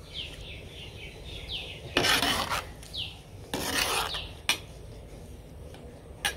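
A spatula scraping and stirring in a pot of khichuri as the ground spices are worked in: two rasping strokes about two and three and a half seconds in, with a couple of light clicks after.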